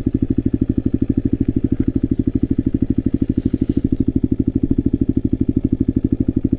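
Leonart 125 cc motorcycle engine idling steadily while the bike stands still, a quick, even beat that holds the same speed throughout.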